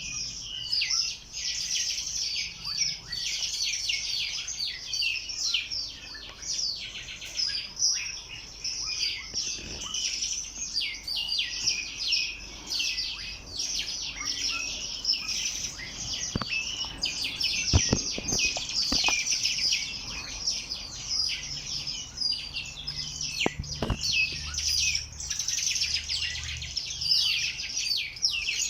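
Many small birds chirping and twittering at once, a dense, continuous chatter of rapid high overlapping chirps. A few sharp clicks stand out about two-thirds of the way through.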